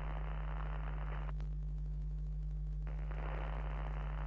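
Steady low electrical hum with bursts of static hiss, the old-television sound effect of an end card: one burst of static for about the first second and another starting about three seconds in.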